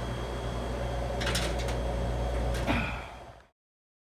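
Steady hum of running machinery with several sharp clicks, about a second in, and another knock shortly after. The sound then fades out abruptly to silence.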